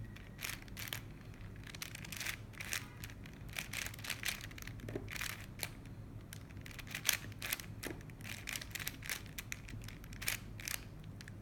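A Rubik's Cube being twisted by hand. Its plastic layers click and rattle with each quick turn, in irregular runs of several clicks a second, as a checkerboard pattern is made on it.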